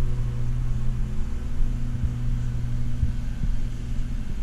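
A steady low hum with a rumble underneath, and a few soft low knocks about three to four seconds in.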